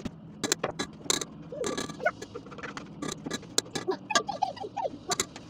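Thick cake batter being tipped from a plastic blender beaker into a metal multicooker pot, with repeated taps and knocks of the beaker against the pot and scraping, plus several short squeaks in the middle and second half.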